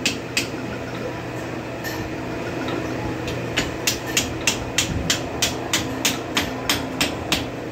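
Hammer striking a steel hydraulic cylinder held in a vise. Two single blows at the start, then from about halfway through a quick, even run of about a dozen blows, three or four a second. Under it runs a steady low workshop hum.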